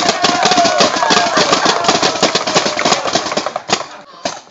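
Rapid paintball gunfire, several markers shooting at once with many shots a second, mixed with shouting voices. The firing dies away near the end.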